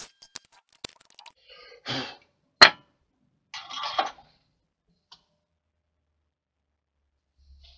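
Handling noises as a small turned wooden base is taken off a stopped wood lathe's chuck and set down: a few light clicks, short rustling and scraping, and one sharp knock about two and a half seconds in, the loudest sound.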